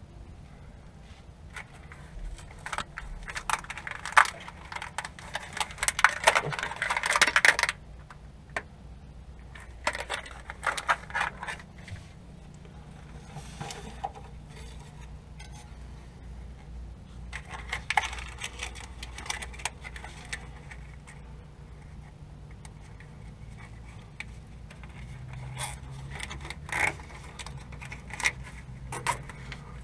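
Bursts of clinking, rattling and scraping from hands pulling and handling a salt spreader's wiring harness against a truck's steel frame. The handling noise is loudest in the first several seconds and comes in several clusters, over a steady low hum.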